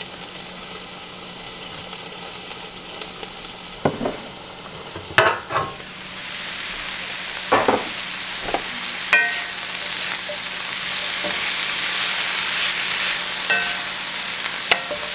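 Shredded cabbage frying in a cast-iron skillet under an aluminum sheet pan used as a lid. The sheet pan knocks a few times as it is lifted off about four to five seconds in, and the sizzle grows louder and steady from about six seconds. Wooden-spoon stirring brings several light knocks, some with a short metallic ring.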